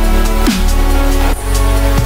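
Chillstep electronic music: a heavy, deep sustained bass under held melodic tones, with a drum hit that drops in pitch about once a second and light high percussion.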